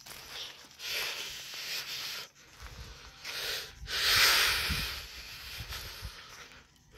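A man's breathing close to the microphone, a few hissing breaths with short gaps, the loudest a little past halfway, with a low wind rumble on the microphone through the middle.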